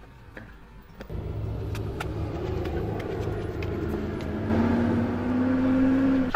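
Golf cart running as it drives: a steady low motor hum that starts about a second in, with a whine that rises in pitch and gets louder about two-thirds of the way through as it speeds up.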